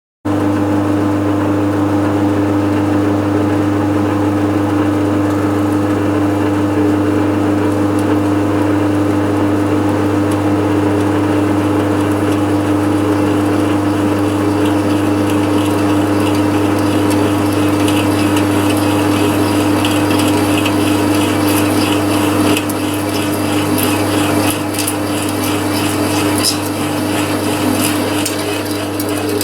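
Restored Meddings MF4 gear-head pillar drill running steadily, with its rebuilt motor on new bearings and geared head giving a steady hum with a strong mid tone. A bit past halfway, a rapid crackling, scraping noise joins in and the level dips a little in steps.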